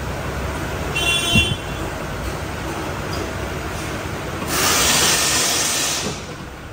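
Car service workshop noise: a steady low hum, a short high-pitched squeak about a second in, and a loud hiss lasting about a second and a half near the end.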